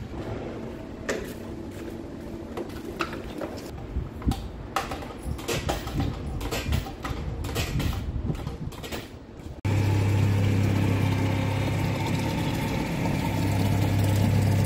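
A series of clicks and knocks from handling. About two-thirds of the way in, a reverse-osmosis water vending machine starts suddenly, with a steady loud pump hum and water pouring into a large plastic bottle.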